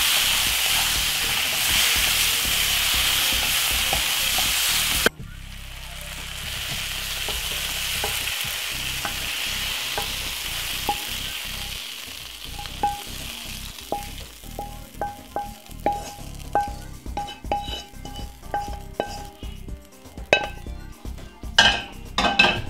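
Mixed vegetables sizzling in a hot non-stick frying pan as they are stirred with a wooden spoon. About five seconds in the sizzle drops suddenly and carries on more quietly, fading out, and the second half is a string of light clicks and scrapes of the wooden spoon as the vegetables are scraped out of the pan into a glass bowl.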